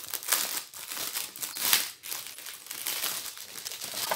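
Plastic packaging crinkling irregularly as it is handled and unwrapped from a bead storage case, with a louder crackle a little under two seconds in.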